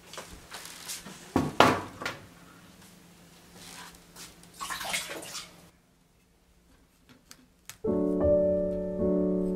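Kitchen handling sounds on a stainless-steel counter: a sharp knock as a wooden cutting board is set down, with scraping and rustling around it and again about five seconds in, then a few small clicks. Soft piano music comes in near the end.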